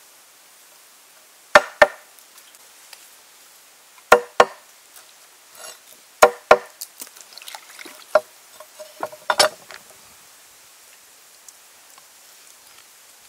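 Meat cleaver chopping on a wooden board: three pairs of sharp chops a few seconds apart, then lighter, irregular knocks and clicks for a couple of seconds.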